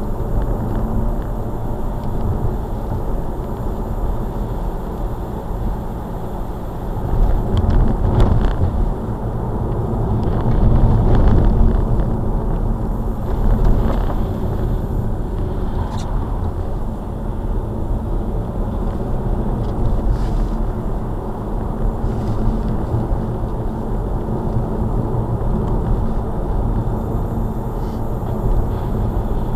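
Steady engine and tyre rumble of a car driving at about 35 mph, heard from inside the cabin. The rumble swells a little a few times about a third of the way in.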